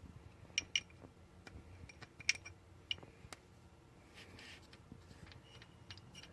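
Faint, irregular metallic clicks and ticks, a few short ringing ones among them, as the 2.8L engine's exposed timing chain and gears are turned over by hand with a wrench.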